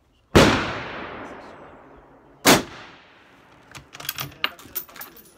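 A rifle shot from a suppressed .308 Win bolt-action rifle, with a long echoing tail, followed about two seconds later by a second, shorter shot. Near the end comes a run of metallic clicks as the bolt is worked. The Hush-Tac suppressor takes only a modest edge off the report.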